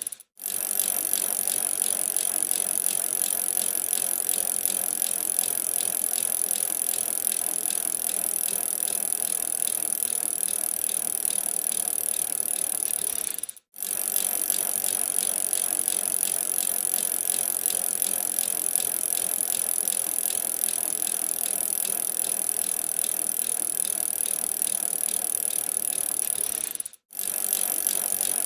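Bicycle being ridden: a steady mechanical rattle and whirr from the drivetrain. It cuts out for an instant three times, about every 13 seconds.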